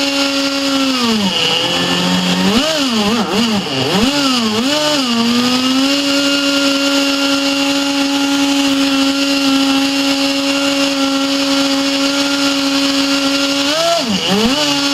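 Webra .61 two-stroke glow engine running flat out in a RamTec ducted fan unit, with a loud, high fan whine. About a second in the pitch drops, then swings up and down several times before settling back to a steady high pitch; near the end it sags and wavers again.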